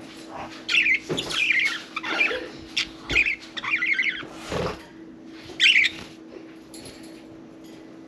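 Budgerigars chirping and warbling in quick bursts, busiest in the first six seconds and then quieter, over a faint steady low hum.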